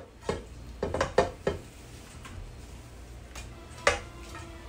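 Cookware being handled on a kitchen counter: a quick cluster of knocks and clinks about a second in and another sharp knock near the end, as a baking tray and a pot are moved and set down, over a low steady hum.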